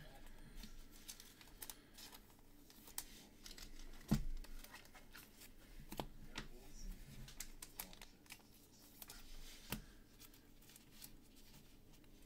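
Hands handling trading cards and their foil pack wrappers: scattered soft clicks and crinkles, with one louder knock about four seconds in.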